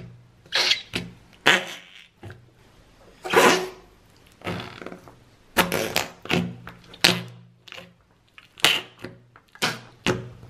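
Yellow toy-kit slime packed in a small plastic cup making a funny squelching noise as fingers are pushed into it and pulled out, trapped air forced out of the cup. It comes as a quick, irregular string of short squelches, about fifteen in all, with one longer one about three and a half seconds in.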